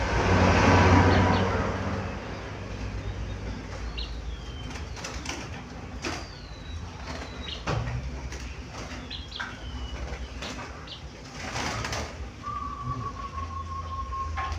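Bird calls with a zebra dove cooing. There are a few short high chirps that fall in pitch, scattered clicks, and a steady held note near the end. A loud rush of noise swells and fades in the first two seconds.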